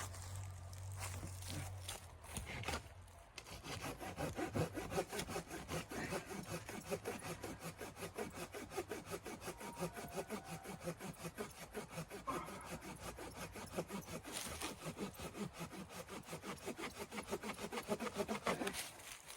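Hand saw cutting wood in steady back-and-forth strokes, about three or four a second. The sawing starts about three seconds in and stops shortly before the end.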